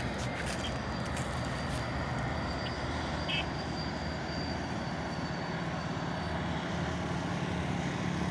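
Steady outdoor noise of motor traffic. A low engine hum grows louder near the end.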